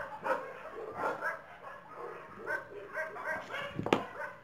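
A dog barking repeatedly in short yips, with one sharp click a little before the end.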